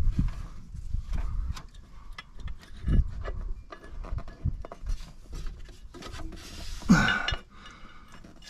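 Light clicks, taps and rubbing of small metal and plastic parts being handled and fitted at a truck's transmission bellhousing, as the throwout bearing is slid onto the input shaft. One louder, brief sound comes about seven seconds in.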